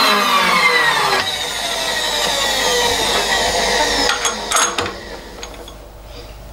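Small milling machine's spindle motor winding down after being switched off, its whine falling steadily in pitch and fading, with a couple of sharp knocks about four seconds in.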